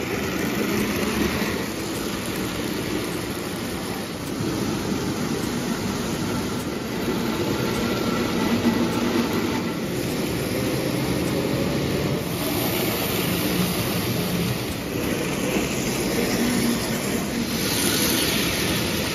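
Lionel O-gauge electric toy steam locomotive running on tinplate three-rail track: a steady motor whir mixed with the rumble of metal wheels on the rails.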